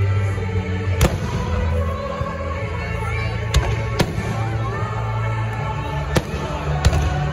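Fireworks display: about five sharp aerial shell bursts at uneven intervals, over steady music.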